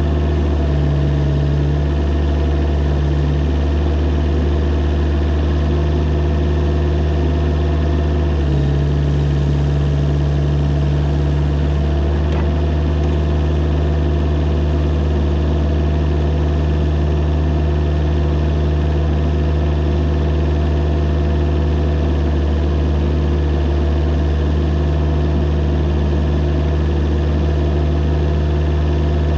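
Mini excavator's diesel engine running steadily at a constant speed, with a slight change in its note about eight and a half seconds in.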